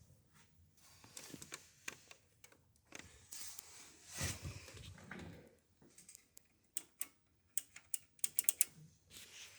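Light clicks, taps and rustling of hard plastic and metal parts being handled, with a louder clatter about four seconds in and a quick run of sharp clicks near the end.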